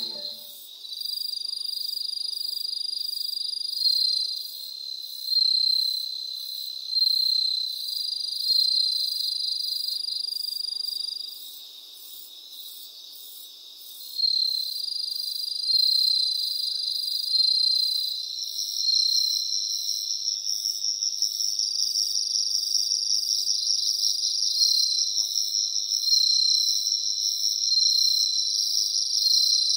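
Insects chirping: several high-pitched trills overlapping, with short chirps repeating about every second and a half. The chorus dips quieter for a couple of seconds near the middle, and a higher steady trill joins later on.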